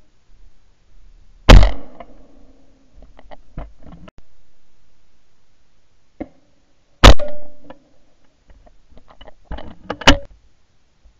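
Two shotgun shots with 36 g steel-shot cartridges, recorded at the gun by a barrel-mounted ShotKam, about five and a half seconds apart. Each is a very loud crack with a short decaying tail. Lighter clicks and knocks fall between them, and a smaller sharp crack comes near the end.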